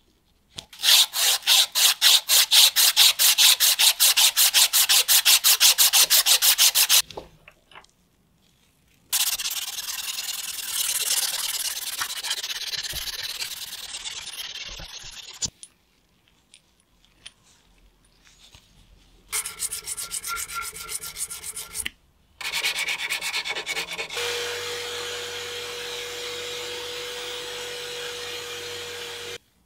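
A steel shaft clamped in a vise is abraded by hand, first in fast, regular rubbing strokes and then with an abrasive cloth strip pulled back and forth in a steadier rub. Later a power drill spins a felt polishing wheel against the shaft. It starts, stops briefly, then runs with a steady motor whine until it cuts off near the end.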